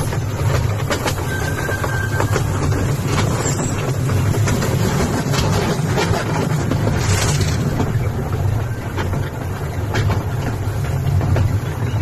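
Riding aboard a small tourist train: a steady low rumble from the wheels and running gear, with scattered clacks from the track.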